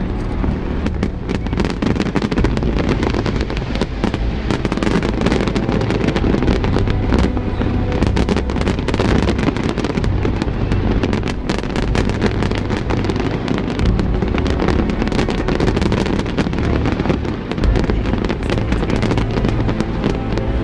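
Fireworks display: a dense, continuous run of crackling and popping over a steady low rumble of bursts.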